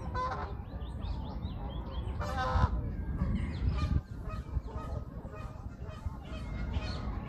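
Waterfowl honking on a pond: two loud calls, just after the start and about two and a half seconds in, while small birds chirp throughout over a steady low rumble.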